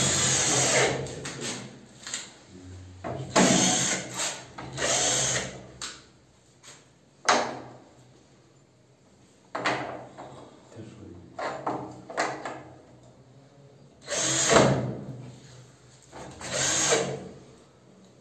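Cordless drill-driver running in short bursts, about seven times, as it drives screws through a door hinge into a PVC composite door frame.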